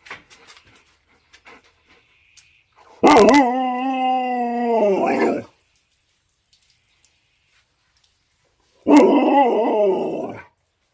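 A dog howling twice: a long howl that holds its pitch, about three seconds in, and a shorter, wavering one near the end.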